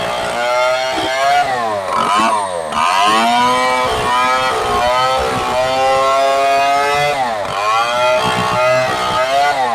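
STIHL 070 two-stroke chainsaw running at high revs. The revs dip sharply and climb back twice, around two seconds in and again around seven seconds in.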